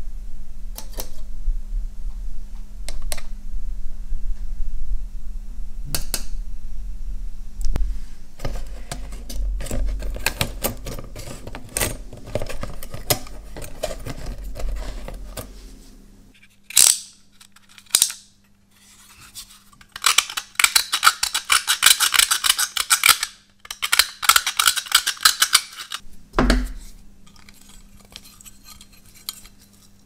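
Small metal parts and wire being handled on a steel workbench: scattered clinks and taps, then a few seconds of fast rattling about two-thirds of the way in, over a steady low hum.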